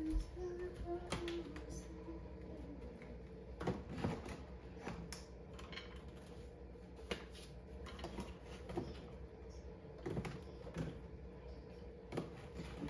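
Household items being handled and set down on a kitchen counter during cleaning: scattered light clicks and knocks at irregular intervals.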